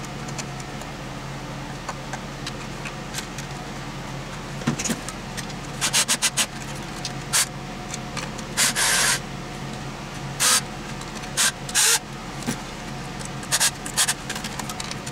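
Irregular short scraping and rubbing strokes of hand work on the opened GQ-75 drain auger's parts, starting about four seconds in, over a steady low hum.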